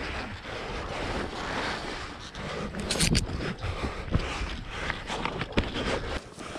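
Skis sliding and scraping over snow, with several sharp knocks and clatters from about halfway through.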